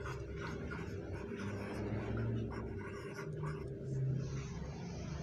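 Felt-tip marker writing on a whiteboard: a run of short, scratchy pen strokes as a word is written out.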